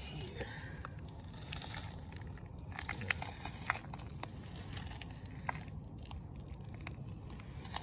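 Faint, scattered light crunches and clicks over a low steady rumble: footsteps and phone handling on a leaf- and grit-strewn driveway.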